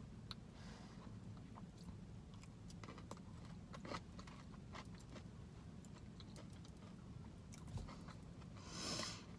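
Faint close-up chewing and eating sounds: a person biting and chewing crispy fried chicken and a KFC Famous Bowl, with small wet clicks and crunches over a low steady hum. A brief hiss near the end.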